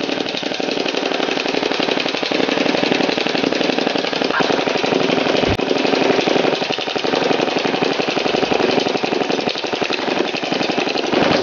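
Snow Wolf M41A pulse rifle airsoft electric gun firing a long, unbroken full-auto burst: a rapid, steady chatter of the gearbox cycling, with BBs tearing into an aluminium drink can.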